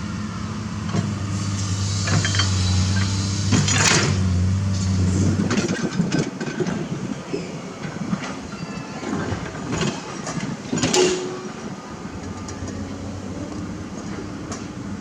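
Heavy diesel machinery running, its steady engine note easing off about five seconds in, with repeated metallic clanks and scrapes typical of an excavator bucket digging and loading dirt and rock.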